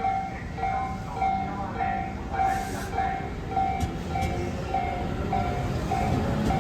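Railway level-crossing warning bell ringing in a steady, evenly repeated tone over the rumble of a Tobu Urban Park Line electric train. The rumble grows louder near the end.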